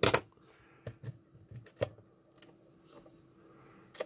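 Sparse clicks and knocks of hard plastic as a small slide and negative scanner's housing is handled and its case halves worked apart, the screws out. A sharper double knock comes right at the start, then a few single clicks.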